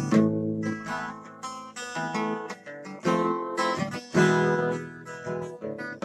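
Background music on acoustic guitar: plucked notes and strummed chords that ring and die away.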